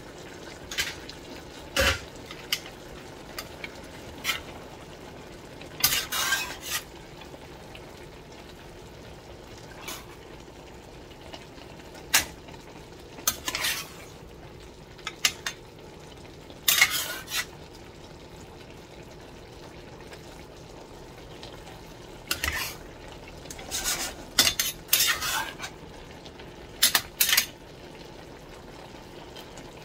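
Wooden spatula stirring a pot of pinakbet vegetables in a stainless steel pot, with irregular scrapes and knocks against the pot in several short bursts. Under them runs a steady low sizzle of the cooking vegetables.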